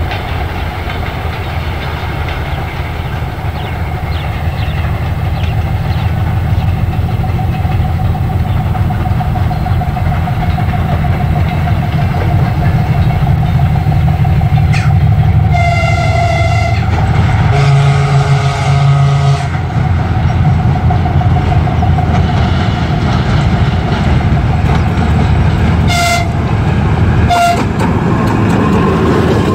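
Soviet 2TE10L twin-section diesel freight locomotive, its 10D100 two-stroke diesel engines running with a steady whine and growing louder as the train approaches. About halfway through it sounds a long high horn blast followed at once by a lower one, and near the end two short high toots.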